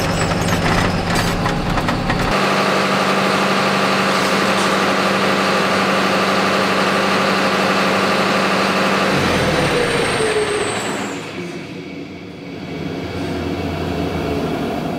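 John Deere diesel tractor engine running steadily. About ten seconds in it winds down with a falling whine, leaving a low hum.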